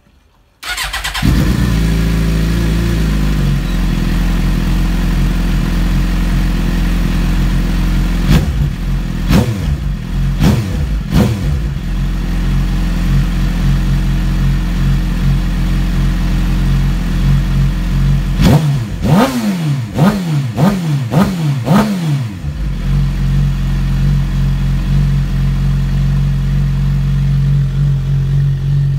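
2006 Suzuki GSX-R 750's inline-four engine, breathing through an Akrapovič slip-on exhaust, starting up and settling from a fast idle to idle. It is revved with a few sharp throttle blips about a third of the way in and a quick run of about five blips about two-thirds through, then idles steadily.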